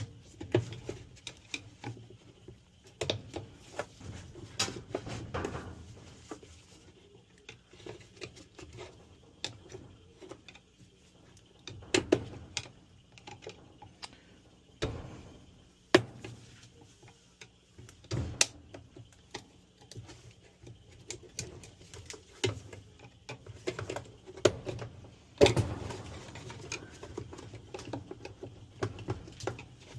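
Irregular clicks, taps and knocks of tools and dryer parts being handled while the blower fan assembly is worked on, with a few sharper knocks standing out.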